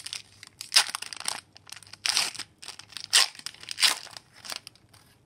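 Foil wrapper of an Upper Deck hockey card pack being torn open and crinkled by hand, in about five short rustling bursts.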